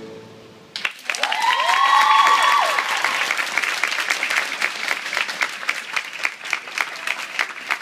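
Arena crowd breaking into applause and cheering about a second in, as the program music dies away. Shrill cheers glide over it for the first couple of seconds, then steady clapping continues, with sharp claps from spectators close by.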